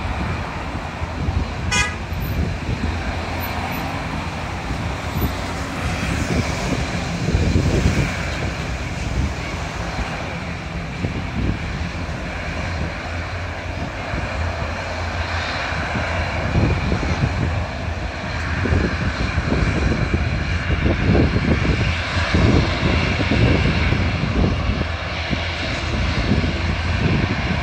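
Fokker 50 twin turboprop engines at take-off power as the airliner rolls down the runway and climbs away, a steady engine drone with gusts of wind buffeting the microphone. A brief rapid ticking about two seconds in.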